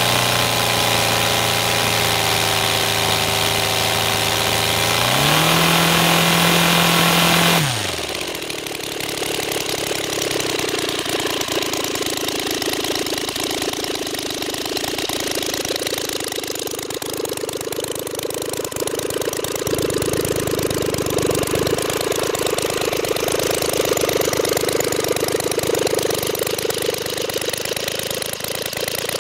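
Roto 130 FSI three-cylinder model aircraft engine running with its propeller on a test stand: it idles steadily, revs up a little about five seconds in, then the sound changes abruptly to a steady, buzzier run. It is a new engine being run in, starting to run smoothly after about two litres of fuel.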